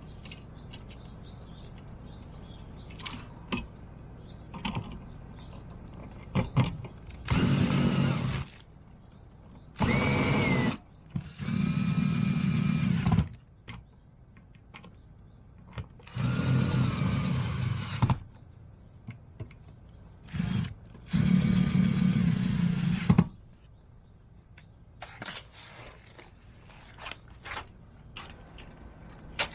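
A power drill runs in about six bursts of one to two seconds each, its pitch rising as it spins up. Clicks and knocks of tool handling come between the bursts.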